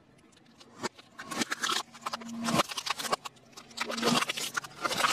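Hard plastic candy tubes and their wrappers cracking and crunching under a slowly rolling car tyre on concrete: after a quiet first second, a long run of sharp snaps and crackles.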